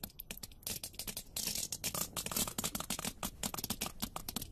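Sperm whale clicks picked up underwater by a hydrophone: many sharp clicks a second, irregularly spaced, the kind of click trains sperm whales use as codas to communicate within the group.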